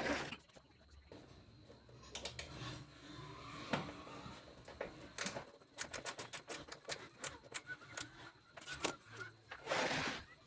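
An irregular run of light clicks and knocks, with a louder rustling burst at the start and another shortly before the end.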